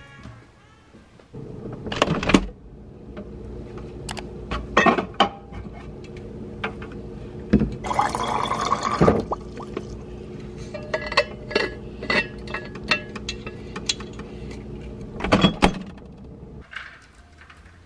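A water bottle being filled, a rushing pour of about a second near the middle, over a steady hum. Several sharp knocks and clinks fall around it, the loudest just after the start and near the end.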